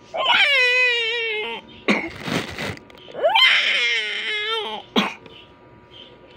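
A young girl's voice: two long, high-pitched drawn-out vocal calls about three seconds apart, with a short breathy rasp between them, then a sharp click near the end.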